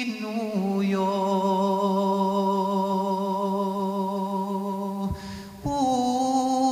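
A man singing a traditional Serbian song from Homolje unaccompanied, in long drawn-out notes. He holds a low note for about four seconds, breaks for a short breath, then holds a higher note.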